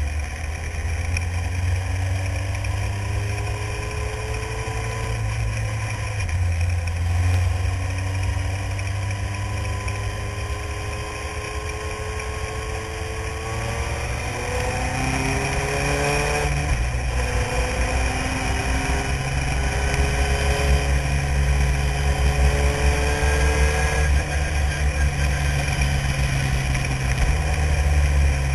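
Renault-engined single-seater formula car at speed, heard from the cockpit: the engine note climbs and drops back again and again as it accelerates and changes gear, with several quick pitch changes about halfway through, over a heavy low rumble.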